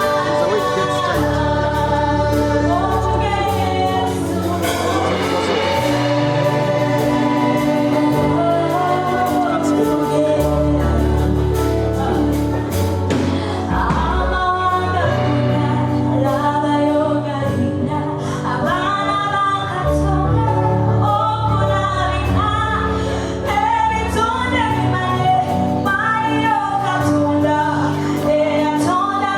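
Gospel worship song: voices singing together over a band with sustained bass and light drums.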